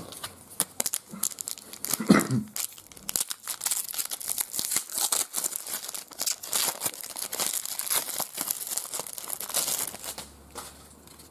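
Foil trading-card pack wrapper being torn open and crinkled. The dense crackling starts about three seconds in and stops near the end.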